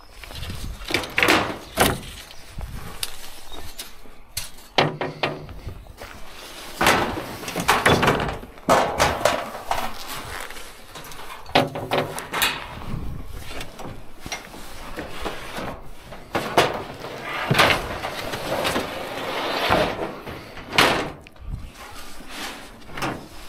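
Scrap metal shelving and wooden shelf boards clattering and scraping as they are shifted by hand inside a steel skip, with irregular knocks and bangs.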